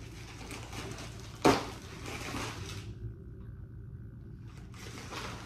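Handling and opening a mailed package: packaging rustling, with one sharp knock about a second and a half in.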